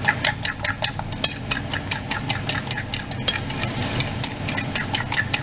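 Fork beating eggs and grated Parmesan in a ceramic bowl, tapping the bowl's sides in quick clicks about five a second, over a low steady hum.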